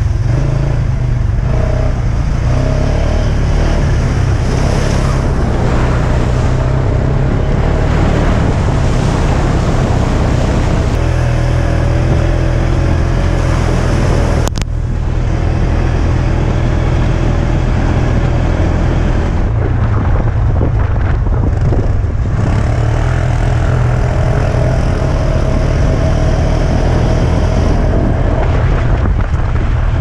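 Off-road buggy's engine running as it drives along dirt tracks, with a heavy low rumble. There is a brief break about halfway through.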